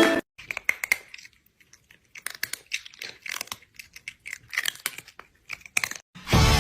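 Scattered soft clicks and crinkling crackles at an irregular pace in a small room, with a brief lull about a second in. Loud background music cuts back in near the end.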